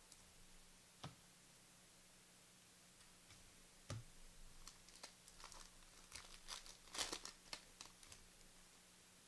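Faint crinkling and tearing of a trading card pack's wrapper being opened, with a few soft clicks and the busiest crackling about two thirds of the way through.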